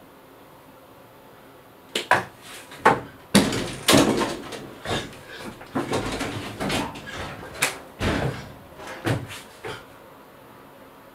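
An interior door being pushed, swung and struck: a run of sharp knocks and bangs with rustling and thudding in between, starting about two seconds in and stopping shortly before the end.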